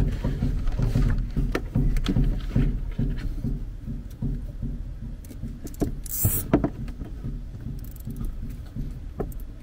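A plastic cable tie being threaded around a wire and hose, with small clicks and handling knocks and a short rasping zip about six seconds in as the tie is pulled through. A steady low rumble runs underneath.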